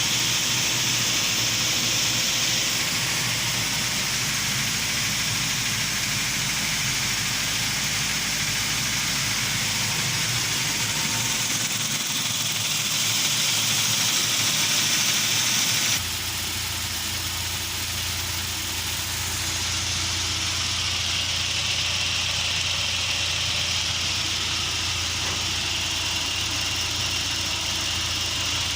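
UAZ Patriot engine idling steadily with a knock in it, the fault the owner is tracking down. The low hum shifts abruptly about halfway through.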